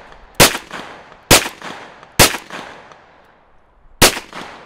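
Luger carbine firing four semi-automatic shots, the first three about one a second, then a pause of nearly two seconds before the fourth; each crack rings off with a short echo.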